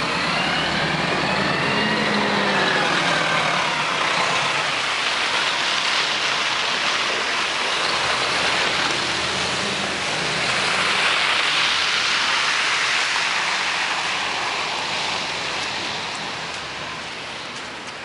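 A 1996 NovaBus RTS-06 diesel transit bus pulls away and drives off over slushy road. A whine rises and then falls in pitch over the first few seconds, above a steady rush of engine and road noise. The rush swells again about ten seconds in and fades near the end.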